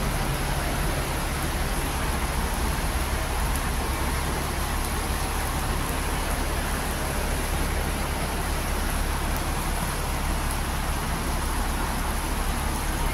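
Steady rain falling on wet pavement, with a low rumble from buses at the terminal.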